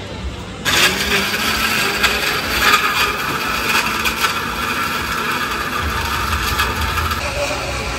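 Electric countertop blender running steadily, blending red dragon fruit into fresh juice. It starts abruptly a little under a second in.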